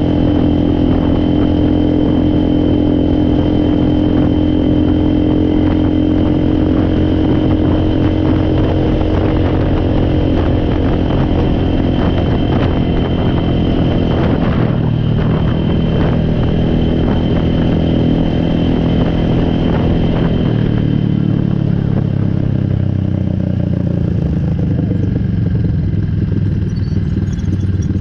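A four-wheeler (ATV) engine running steadily, its pitch stepping down about halfway through and again a few seconds later as it slows.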